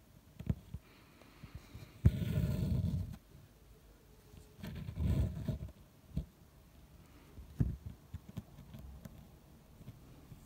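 Needle and thread being pulled through taut fabric and felt in an embroidery hoop: two scraping pulls of about a second each, around two and five seconds in, with a few light clicks between.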